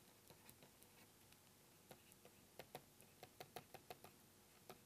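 Faint, irregular light clicks and taps of a stylus writing on a pen tablet, most of them in a quick cluster in the second half, over near-silent room tone.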